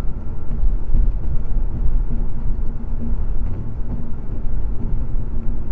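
Steady low rumble of road and engine noise from a car cruising on a highway, picked up by a dash cam inside the cabin, with a faint steady hum.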